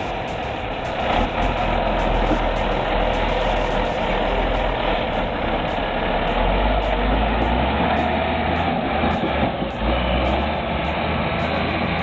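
Heavy truck engine running steadily, with a low rumble under a dense mechanical noise.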